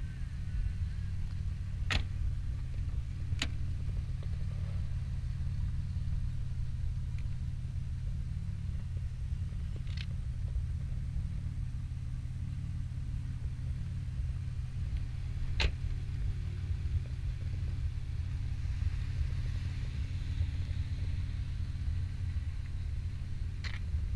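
Steady low rumble, with a few brief sharp clicks scattered through it.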